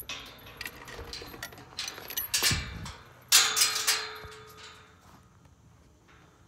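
Horse moving on a sand arena, with scattered clicks of hooves and tack in the first two seconds. The loudest sounds are two short rushing bursts about two and a half and three and a half seconds in.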